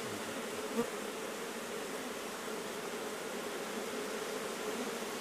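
Steady buzzing hum of a large colony of Asian honey bees (Apis cerana) massed in a cluster outside their nest, thousands of bees crawling and flying at once; the colony has been disturbed and has poured out of its nest. A brief knock sounds about a second in.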